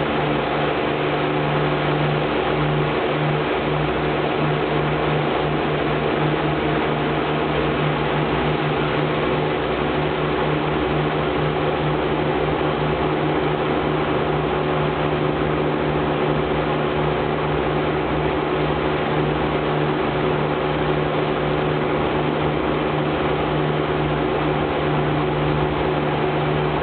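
The Avro Lancaster's four Rolls-Royce Merlin piston engines heard from inside the fuselage, a steady loud drone with a slight throb, at steady power.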